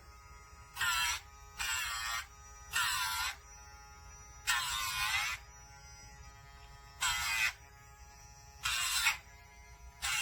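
Casfuy electric dog nail grinder's small motor running with a steady buzz, with seven louder bursts of grinding, each half a second to a second long, as the spinning drum is pressed against the dog's nails.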